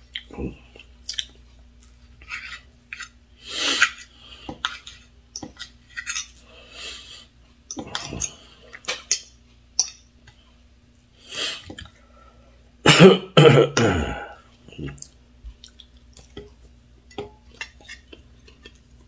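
A person eating at the table: chewing and a fork clicking and scraping on a plate while cutting pancakes, with a loud cough of two or three bursts about two-thirds of the way through.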